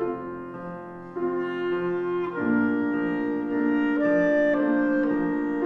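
Solo clarinet playing a melody of held notes, softer at first and then louder from about a second in, over a piano accompaniment with soft low notes recurring at an even pace.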